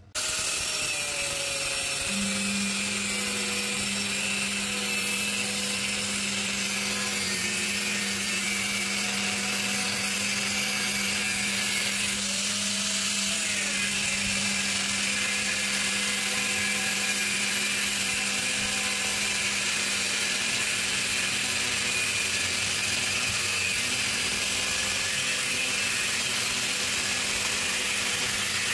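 Angle grinder with a thin cut-off disc cutting through the steel shell of a 1.5-ton air conditioner compressor: a steady, high-pitched grinding over the motor's whine. The pitch swells briefly about halfway through.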